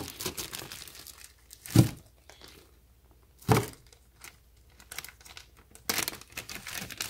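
A clear plastic bag of paperwork being handled and pulled open, crinkling, louder again near the end. Two dull thumps sound about two and three and a half seconds in.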